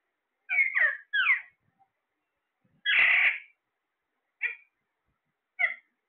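Caged Alexandrine parakeets calling: three quick squawks that slide downward in pitch about half a second in, a longer, harsher screech about three seconds in, then two short chirps near the end.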